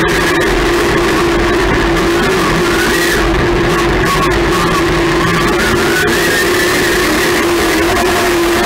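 Rock music with guitar, loud and steady.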